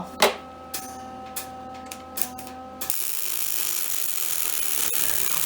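A few sharp metal clicks and knocks from tools and parts being handled, then a loud, steady hiss starts abruptly about three seconds in and runs for nearly three seconds before cutting off.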